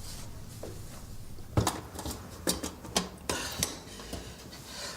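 A run of sharp clinks and knocks, several in quick succession, starting about a second and a half in, over a low steady hum.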